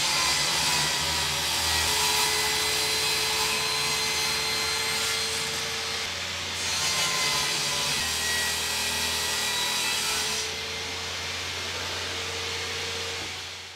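Electric power tool running continuously against wood, a steady hiss with a faint motor hum, stopping abruptly at the end.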